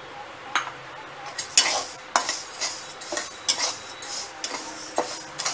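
Metal spatula stirring and scraping urad dal around a metal kadhai as it dry-roasts: repeated scrapes of metal on metal with the grains rustling, about two strokes a second.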